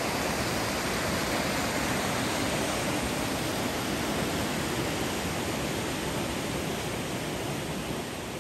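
Whitewater of a mountain stream rushing over rock slabs at the lip of a waterfall: a steady, even rush that fades slightly near the end.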